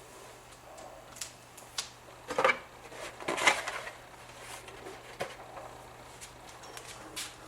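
Handling noises: a few light clicks and knocks, with two short, louder clattering rustles between about two and four seconds in, over a faint steady low hum.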